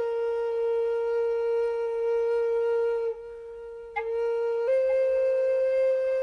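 Solo flute playing slow, long held notes: one note held for about three seconds, a softer stretch, then a step up to a slightly higher note held to the end.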